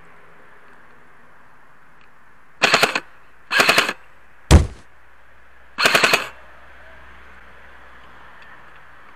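Airsoft electric rifle (Specna Arms SA-A08 AEG) firing three short full-auto bursts of rapid clicks. A single sharp thump comes between the second and third bursts.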